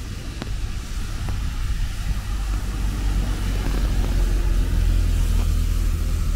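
Steady hiss of falling rain under a low rumble of a motor vehicle, which grows louder and is at its loudest about five seconds in.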